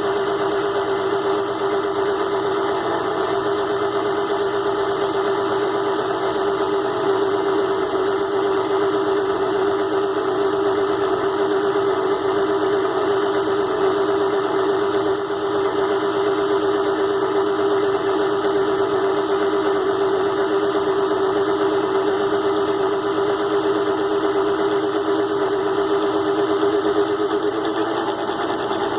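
Small DC motor of a ZhouYu 6-in-1 mini lathe running steadily while grooving aluminium stock, a constant mid-pitched whine.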